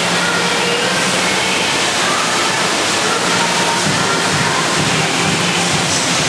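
Steady rush of water from an indoor standing-wave surf ride, a thin sheet of water pumped at speed up a padded ramp.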